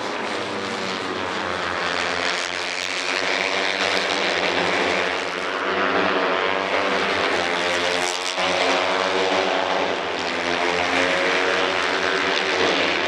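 A pack of Honda NSF250R 250cc single-cylinder four-stroke race motorcycles running at high revs as they pass, engine pitch rising and falling through gear changes and corners, with a sharp sweep in pitch about eight seconds in.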